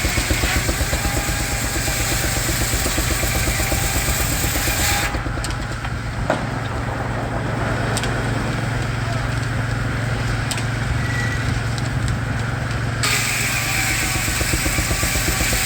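Baker steam traction engine running the sawmill, with a rapid, even exhaust beat over a steady low hum. A single sharp click comes about six seconds in.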